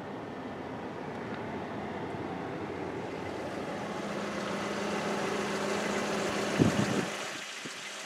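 Steady motor-vehicle rumble with a low hum, growing slightly louder, and a brief low thump about six and a half seconds in.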